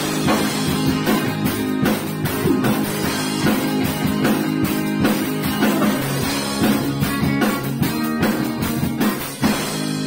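A rock band playing live: electric guitar and bass over a drum kit keeping a steady beat.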